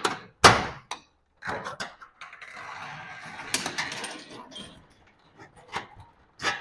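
Metal clanks and knocks of garage door hardware as old worn-bearing rollers are worked out of the door track, the loudest clank about half a second in, with a rattling, scraping stretch in the middle.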